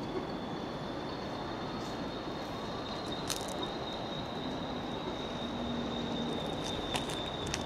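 A distant train approaching on the rails: a steady high-pitched whine over an even background rumble, with a couple of short clicks.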